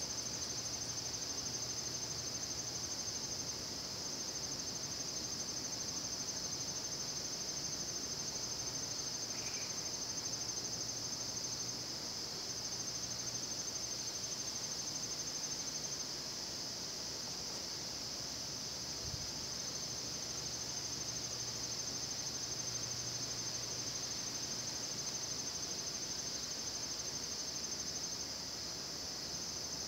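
Crickets chirping in a dense, steady chorus: a high, continuous trill that hardly varies.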